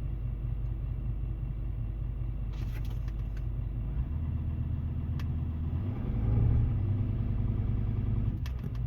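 Volkswagen Touareg V10 TDI diesel idling in gear, with a faint rubbing or grinding noise that goes away once the vehicle moves; the owner suspects the torque converter. About six seconds in, the engine note grows louder and rises and falls slightly.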